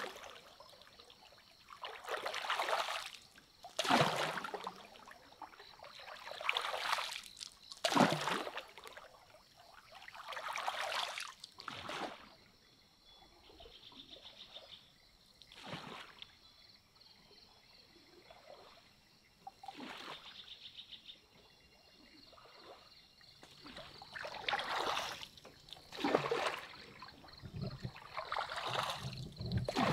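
Water splashing and trickling in repeated swells a second or few apart, quieter for a while in the middle.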